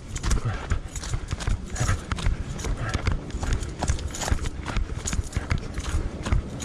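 A trail runner's footsteps on a dirt hill path at a steady running pace, about three strides a second.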